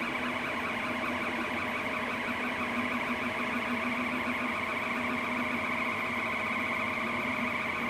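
Rostock Max V2 delta 3D printer running a print: its stepper motors give a steady whine in several held tones as the print head moves over the bed.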